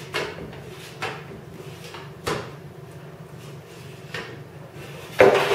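Hand-lever fluting tool crimping flutes into the flange of an aluminium wing rib, one stroke after another: five sharp clunks at uneven spacing, the last the loudest. Each stroke enlarges a flute to straighten the bowed rib.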